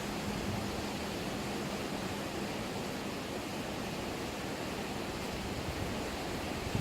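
River water rushing past in a steady, even wash of noise.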